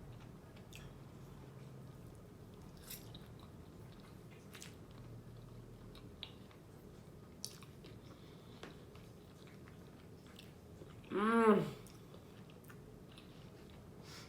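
Quiet chewing and wet mouth sounds of someone eating creamy fettuccine alfredo, with scattered soft clicks. About eleven seconds in comes a short hum from the eater's voice, rising and falling in pitch: the loudest sound.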